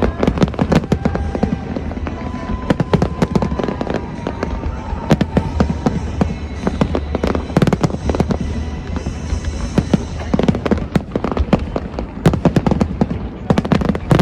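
Fireworks display going off continuously: rapid, dense bangs and crackles with hardly a gap, over a low rumble of echoing blasts.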